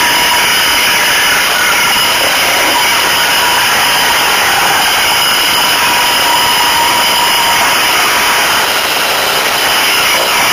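Dirt bike engine running steadily under way, close and loud, with no change in revs.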